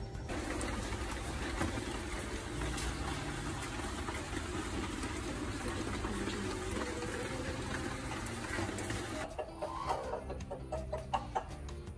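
A broody hen clucking: a few short clucks near the end. Before them there is a long stretch of even, steady hiss.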